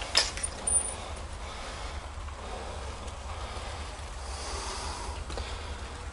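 Quiet room with a low steady rumble and a few faint clicks and knocks, two of them close together in the first second: handheld camera handling and footsteps on a debris-covered floor.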